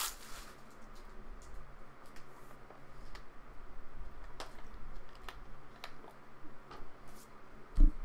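Sparse light clicks and taps, like keys or small objects handled on a desk, with one dull thump near the end.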